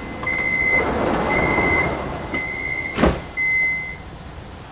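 Metro train door warning chime beeping four times, about once a second, then the sliding doors close with a sharp thud about three seconds in.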